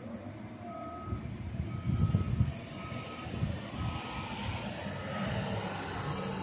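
Reversing alarm on a road-works vehicle beeping about once a second, stopping about five seconds in, over the low rumble of diesel engines running.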